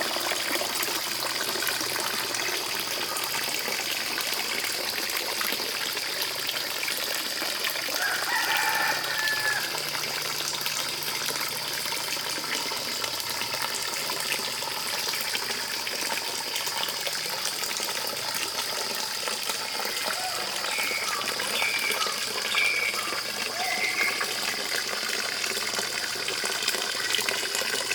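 Water running steadily into a pond. Chickens call a few times over it, with one longer call about eight seconds in.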